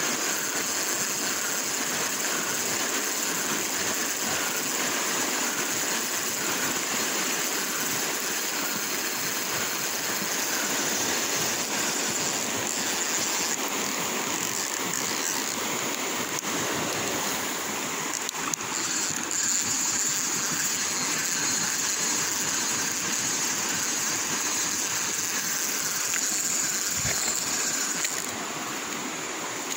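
Shallow river water running fast over rocks: a steady, even rush.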